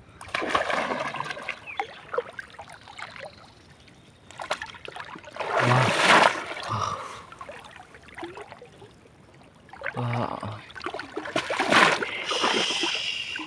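Water splashing and sloshing as a bamboo plunge-basket fish trap is thrust down into shallow muddy water, in three bursts a few seconds apart.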